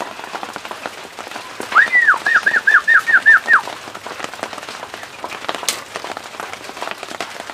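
A bird calling: one longer note followed by a quick series of about six short, down-slurred notes, lasting about two seconds and starting about two seconds in, over a steady background hiss.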